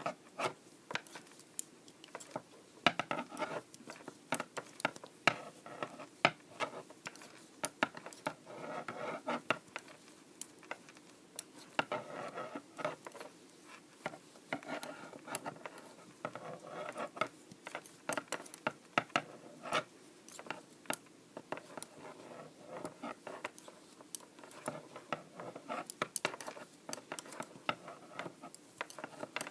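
Knitting needles clicking and tapping together at an irregular pace, with the yarn scratching and rubbing as stitches are worked.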